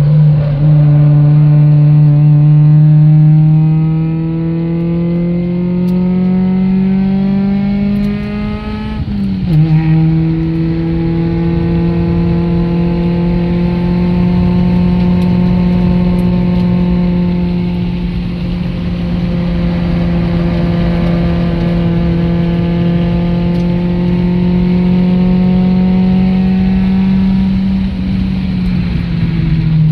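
Car engine heard from inside the cabin, pulling hard down long straights with its pitch climbing slowly. The revs drop sharply with a gear change about nine seconds in, then climb again and fall away near the end.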